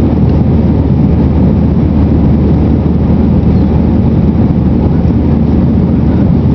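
Steady roar of an Airbus A320's jet engines and airflow heard inside the cabin from a seat over the wing, as the airliner climbs out after takeoff with flaps extended. A deep, even rumble with a low steady hum beneath it.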